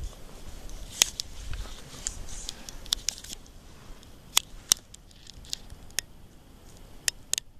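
Rustling of backpack fabric and straps with irregular sharp clicks of climbing gear, busiest in the first three seconds, then only a few scattered clicks.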